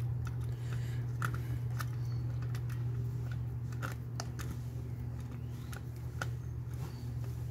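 Screwdriver tightening the Phillips mounting screws of a wall outlet into a metal box: scattered small clicks and scrapes of the tip on the screw heads, over a steady low hum.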